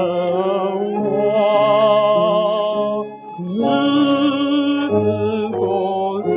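A 1932 78 rpm record playing a patriotic song: singing with instrumental accompaniment, long held notes with vibrato and a brief break about three seconds in. The sound is thin and muffled, with no high treble.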